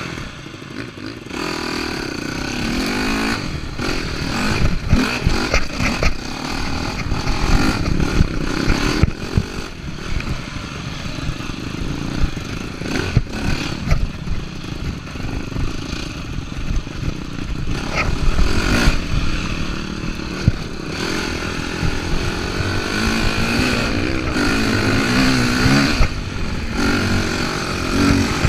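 Enduro dirt bike being ridden over rough trail, its engine revving up and down with the throttle, with clatter from the bike jolting over bumps. The engine note gets louder about a second in.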